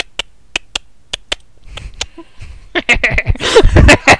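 A car's indicator relay clicking in even pairs, about one pair every 0.6 seconds, as the car sits pulled over. About three seconds in, louder noise and a voice take over.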